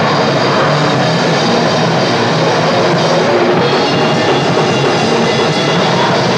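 Grindcore band playing live at full volume: pounding drum kit under amplified instruments, a dense, unbroken wall of sound.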